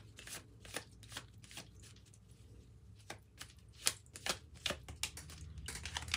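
A tarot deck being shuffled by hand: soft, irregular clicks and riffles of card edges, thinning out briefly about two seconds in before picking up again.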